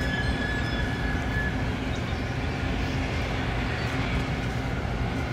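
Steady low diesel engine rumble from a tugboat working alongside a container ship. A faint high tone fades out about a second in.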